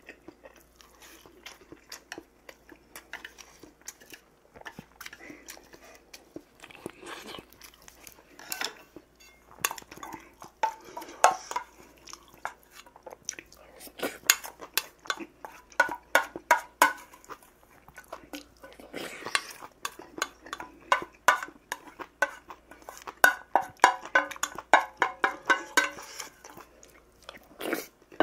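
Chewing, and a metal spoon clinking and scraping against a stainless steel bowl, the clicks coming in quick runs around the middle and again near the end.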